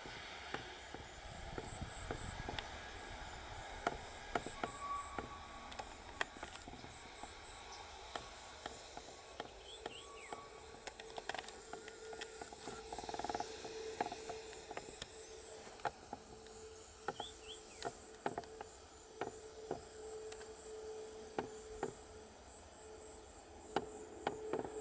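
Insects chirping in quick groups of high pips, with scattered sharp clicks over a faint low rumble. A faint steady hum comes in about ten seconds in.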